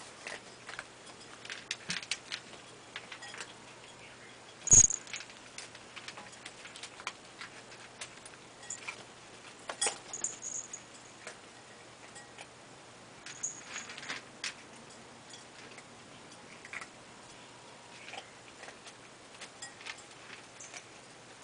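Several cats eating from food bowls: irregular small clicks and clinks as they eat and push at the bowls, with one much louder knock about five seconds in.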